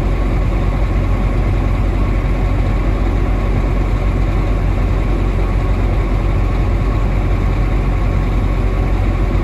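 Semi truck's diesel engine idling steadily, heard from inside the cab, while its air compressor pumps the air system up from low pressure after a governor valve replacement.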